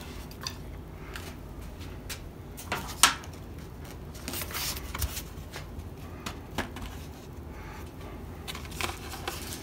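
Light taps, clicks and rustling of a foam model airplane wing being handled and seated onto its foam fuselage, with a sharper click about three seconds in.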